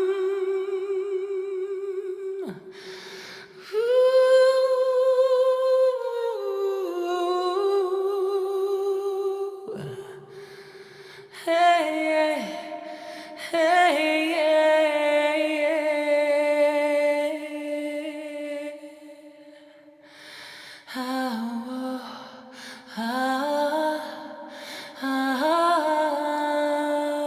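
A voice humming a slow, wordless melody in long held notes with vibrato, sliding between pitches and pausing briefly between phrases.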